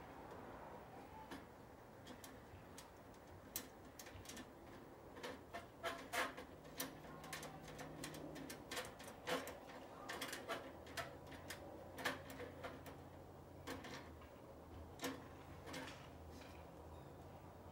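Irregular light clicks and clinks of aluminum parts and small hardware of a Harbor Freight Haul Master cargo carrier being handled during assembly, busiest through the middle. A faint low hum runs underneath from about halfway.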